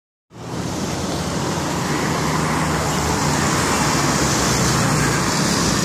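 Steady road traffic noise: vehicle engines and tyres running, with a constant low engine hum.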